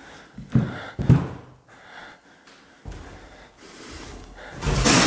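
Footsteps on a wooden classroom floor strewn with debris, two heavy steps about half a second and a second in, then a loud breathy rush of noise near the end.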